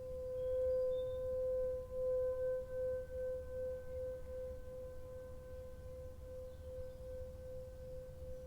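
A sustained ringing meditation tone held at one pitch, swelling about a second in and then wavering slowly as it fades.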